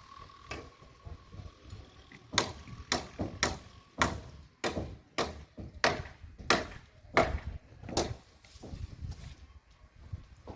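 Hand tool striking hard on a building site: a run of about a dozen sharp blows, roughly two a second, that starts a couple of seconds in and stops near the end.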